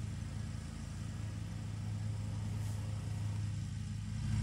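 John Deere Z930M zero-turn mower's V-twin engine running steadily while mowing, heard from a distance as a steady low hum.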